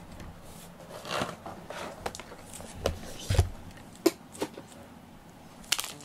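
Scattered light knocks and clicks with a brief rustle, a few seconds apart: small handling or movement noises.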